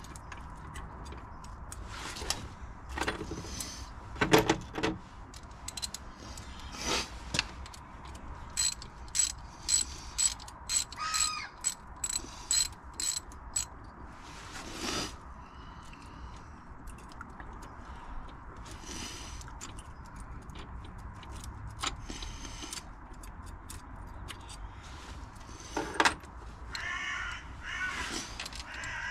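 Hand tools at work on the engine: irregular ratchet clicks and metallic clinks, busiest in the first half. Crows cawing near the end.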